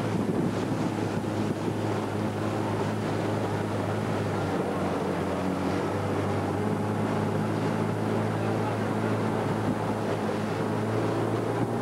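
Small boat's motor running steadily, with wind buffeting the microphone.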